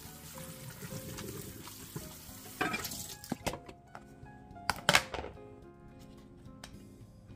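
Tap water running over noodles being rinsed by hand in a plastic colander, under background music; a little past halfway in, a few sharp clicks and knocks, the loudest near the end of that run.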